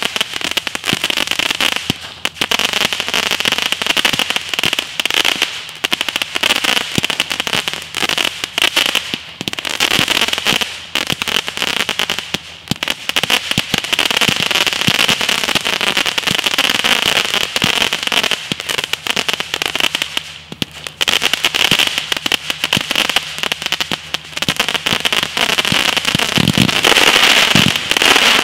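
Motor Mouth multi-shot firework cake firing a continuous barrage: rapid shots and crackling over a steady high whistling, with short lulls about 2, 12 and 20 seconds in.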